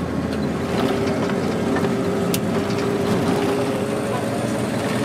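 Bus cabin under way: the engine drones steadily under road noise.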